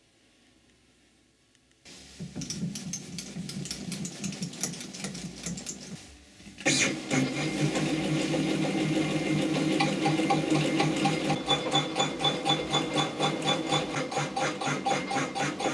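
A metalworking machine starts up about two seconds in and runs with a fast, even, rhythmic clatter. It gets louder about seven seconds in, as if it has gone onto the work.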